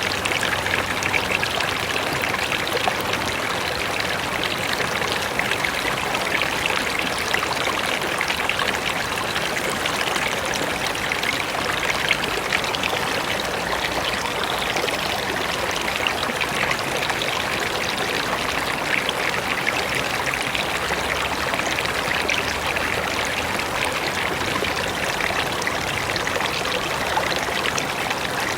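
Mountain river rushing and splashing over rocks, a steady, even water noise with bright splashes throughout.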